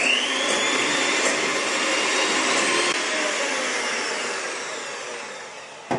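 Electric hand mixer with twin beaters whipping egg whites in a glass bowl: the motor starts with a rising whine, runs steadily, then slowly gets quieter and stops near the end.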